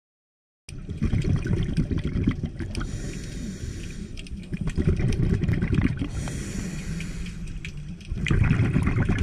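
Muffled underwater bubbling and rumble, heard through a sealed camera housing among scuba divers, with many small crackles and clicks. It starts less than a second in and grows louder near the end.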